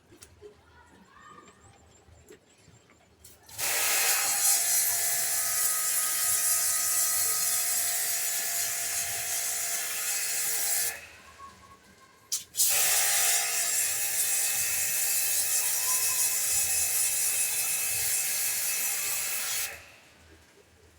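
Pressure washer running in two long bursts of about seven seconds each, a steady pump hum under a high spray hiss, as it blasts a bicycle chain clean. It starts abruptly a few seconds in, cuts out for about a second and a half near the middle, then starts again.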